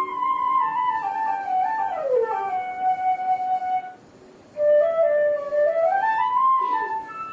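Recorded kroncong music: a single ornamented melody line with sliding pitches, its phrase broken by a short pause about four seconds in.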